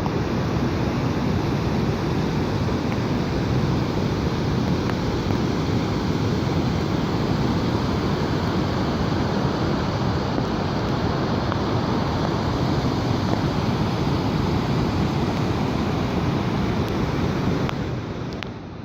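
Steady rushing noise of a heavy rainstorm, with rain and running water, dipping slightly near the end.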